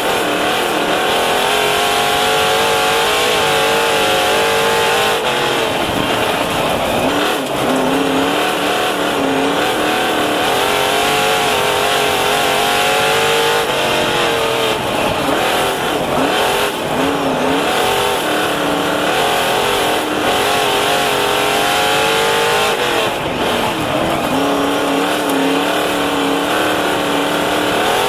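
Onboard sound of a dirt modified race car's V8 engine at racing speed. The engine note climbs on the straights and drops as the driver lifts for the turns, about every eight seconds, over steady wind and tyre noise in the open cockpit.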